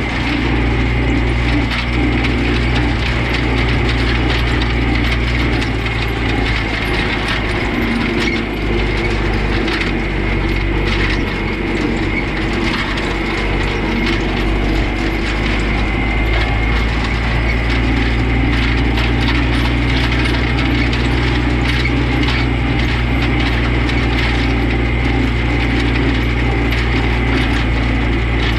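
Tractor engine running steadily while pulling an old horse-drawn hay rake, whose gears and tines clatter and click continuously.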